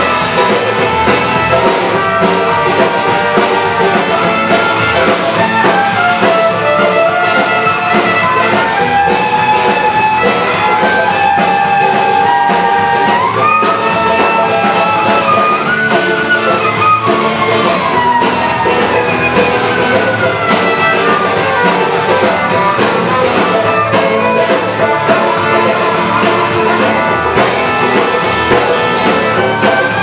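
Live folk band playing, led by strummed acoustic guitar. A melody line rides on top, sliding and bending in pitch through the middle of the passage.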